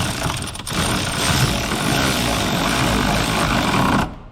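Power ratchet running to tighten a mounting nut, a loud hissing run that stops briefly about half a second in, then runs again and cuts off suddenly near the end.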